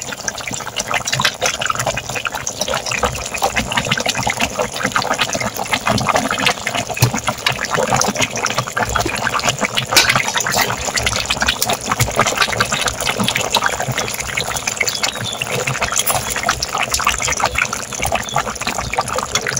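Fish curry boiling in a pot, a steady bubbling with many small pops.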